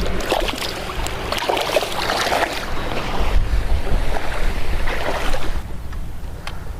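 Wind buffeting the microphone over splashing seawater, as a steady low rumble with a rushing hiss.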